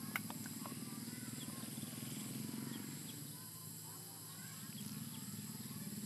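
Grassy-field ambience: a steady high insect buzz and a low, fast-pulsing drone throughout, with scattered short bird chirps. A single sharp click comes just after the start.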